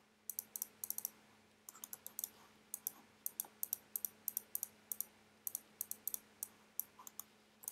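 Quick, uneven clusters of small sharp clicks from computer keyboard and mouse use, over a faint steady electrical hum.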